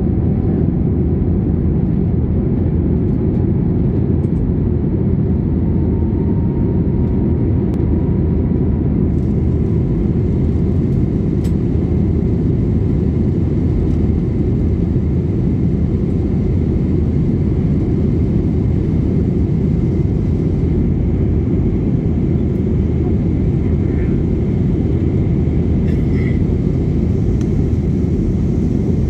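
Steady low rumble of cabin noise inside an Airbus A320-232 climbing after takeoff: its IAE V2500 turbofans at climb thrust and air rushing past the fuselage.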